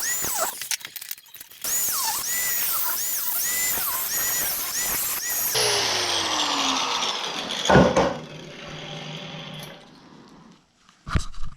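Electric grinder cutting steel, its motor whine dipping again and again as it bites into the metal. About five and a half seconds in it is switched off and winds down with a falling whine, followed by a loud metal clank and, near the end, a short knock.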